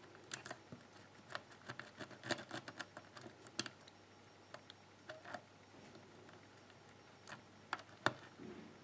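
Faint, irregular small metallic clicks of a lock pick working the pins of a pin tumbler lock cylinder under tension. The clicks come thickly for the first few seconds, then thin out, with a few more near the end.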